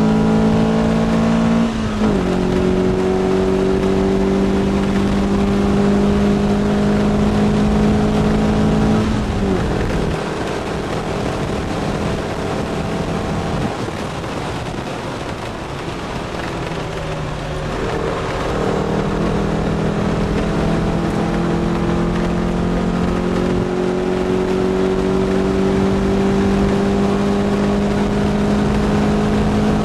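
S1 Lotus Elise's four-cylinder engine heard from inside the cabin under hard acceleration on track, its note rising slowly with the revs. It upshifts with a sharp drop in pitch about two seconds in. It comes off the throttle about nine seconds in and runs quieter through a bend, then pulls hard again from about 18 seconds on.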